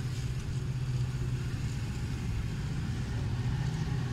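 Diesel locomotive engine running with a steady low drone.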